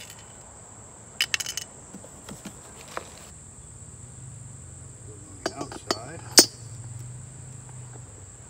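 Sharp metal clinks and taps from cart wheels, axle and hardware being handled as the wheels are put back on the axle, in a few clusters with the loudest about six seconds in. Under them runs a steady high-pitched chirring of crickets.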